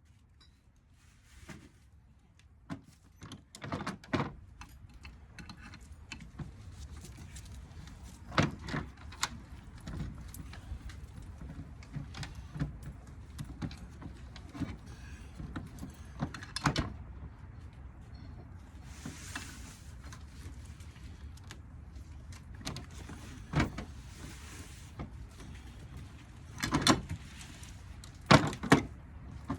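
Hand tools and metal parts of a ceiling fan motor being worked apart: irregular clicks, knocks and scraping, with a few louder knocks spread through.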